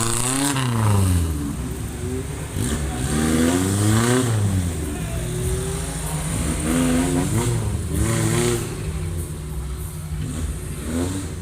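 Off-road car's engine revving up and down again and again, its pitch rising and falling five or six times.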